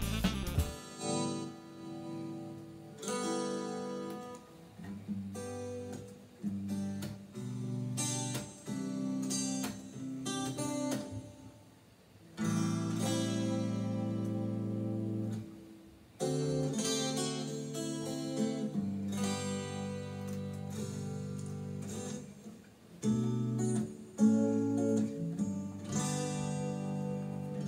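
Acoustic-electric guitar played through a Bose S1 Pro portable PA speaker: chords strummed and let ring, in phrases with short breaks between them.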